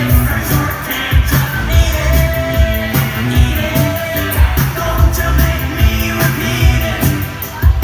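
Pop music with singing over a steady beat.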